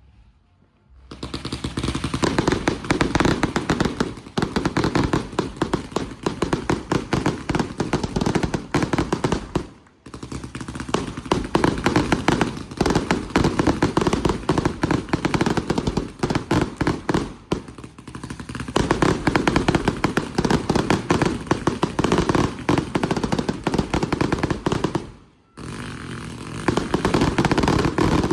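Consumer firework cakes firing in dense, rapid volleys of shots that run together. A brief break comes about ten seconds in and another near the end before the barrage resumes.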